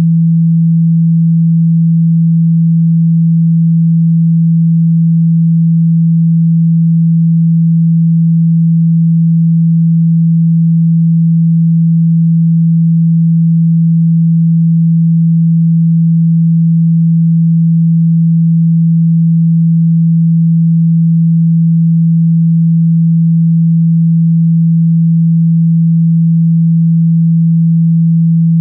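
A steady, loud pure 165 Hz sine tone, unchanging, played to shake water out of a phone speaker.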